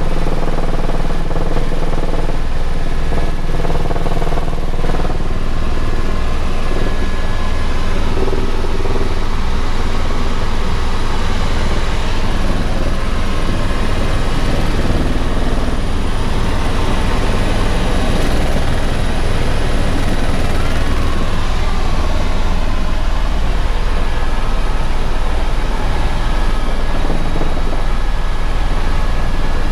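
Steady, loud helicopter cabin noise in flight: engine and rotor running evenly, with a faint high whine throughout.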